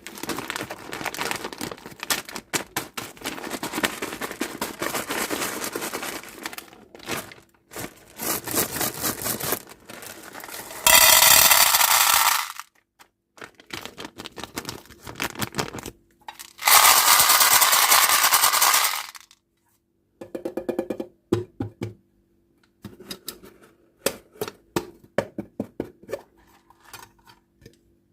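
Hands opening candy and toy packaging: rapid rustling, crinkling and clicking of plastic wrappers. Two loud hissing rushes of about two seconds each come near the middle, followed by scattered clicks and taps.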